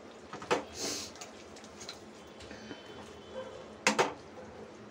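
Silicone spatula stirring thick spiced masala paste frying in a nonstick pan, with a few scrapes and knocks against the pan. The sharpest and loudest knock comes about four seconds in.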